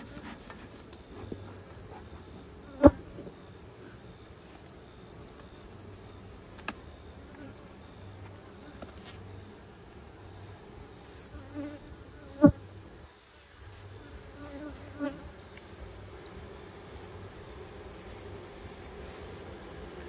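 Honeybees buzzing around an open hive, under a steady high-pitched insect trill. Two sharp knocks stand out, about three seconds in and about twelve seconds in.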